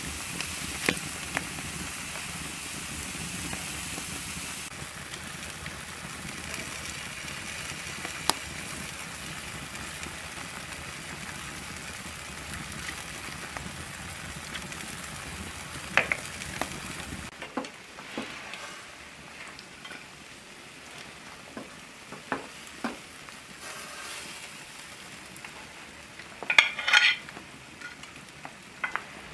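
Pork steaks on a gridiron and mushrooms in a cast-iron skillet sizzling steadily over an open wood fire. Partway through the sizzle drops away, leaving scattered light clicks, then a short loud clatter of utensils near the end as the steaks are lifted onto a plate.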